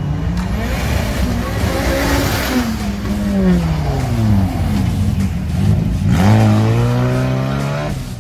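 Drift car's engine revving hard as it slides through, its pitch rising, falling away, then climbing high again about six seconds in, with a hiss of tyre noise as the spinning rear tyres throw up smoke.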